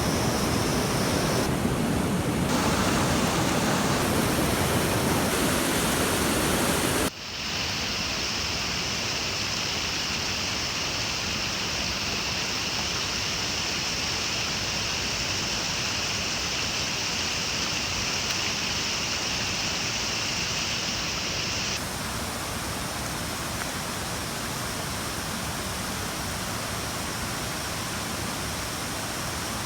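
Steady rushing water noise. It changes suddenly about seven seconds in, going thinner and quieter, and drops slightly again about twenty-two seconds in. Through the middle stretch a faint high steady hiss sits on top.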